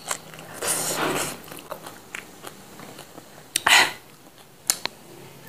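Close-up chewing and wet mouth smacks of a person eating rice by hand, with a few sharp clicks and one louder smack or bite about three and a half seconds in.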